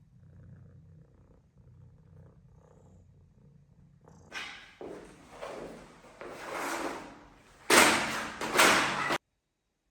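A low purr, faint at first, then loud and close from about four seconds in, in rhythmic breathy bursts of roughly half a second to a second each. It cuts off abruptly near the end.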